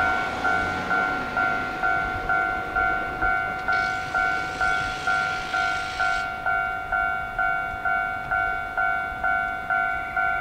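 Level-crossing warning bell ringing steadily at about two strikes a second, each strike dying away. A hiss rises over it for a couple of seconds in the middle.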